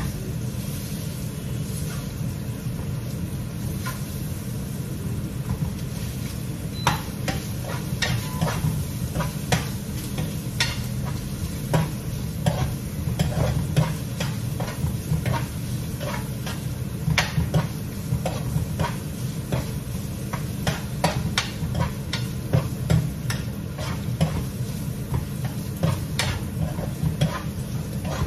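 Food frying in a pan on a stovetop, with frequent short clicks and scrapes of a utensil against the pan from about seven seconds in, over a steady low hum.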